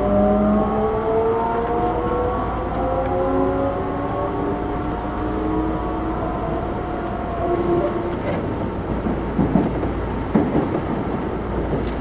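Osaka Metro 66 series subway train's traction motors whining in several tones that climb slowly in pitch as the train picks up speed. The whine stops about eight seconds in, leaving the rumble of the running train with irregular knocks of the wheels over rail joints.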